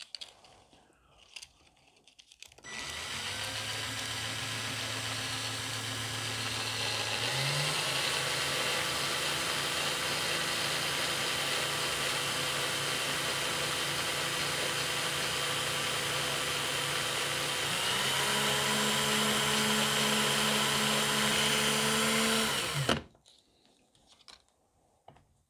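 Cordless drill running with a thin wooden mast pole spinning in its chuck while the pole is sanded to a taper by hand. The motor starts about three seconds in, steps up in speed twice, and stops shortly before the end.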